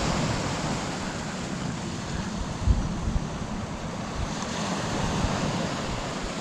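Surf breaking steadily on a beach, with strong onshore wind on the microphone and a couple of brief low thumps near the middle.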